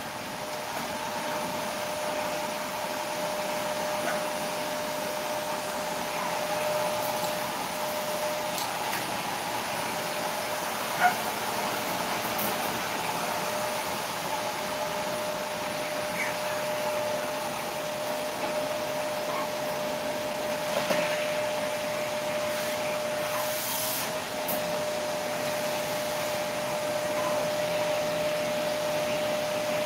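Steady machine hum and hiss with a constant tone, from a small motor-driven appliance running in the room. One short, high squeak, typical of a sleeping puppy, comes about eleven seconds in.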